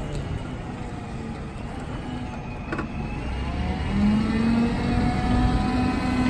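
Cat GP25 forklift's propane-fuelled engine running as the forklift drives and turns, picking up in pitch and loudness about four seconds in.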